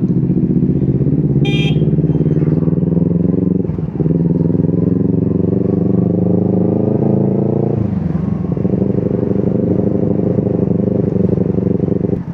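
Motorcycle engine running under way, heard from the rider's seat. Its pitch climbs as it accelerates, with two short breaks where the revs drop, about four and eight seconds in, as gears are changed.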